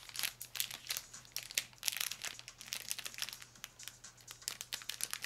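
Foil-lined wrapper of a MadeGood crispy square crinkling as it is squeezed to push the bar out: a long run of irregular, quick crackles.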